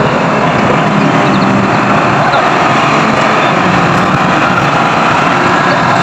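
New Holland 8070 combine harvester's diesel engine running steadily as the machine drives slowly past close by.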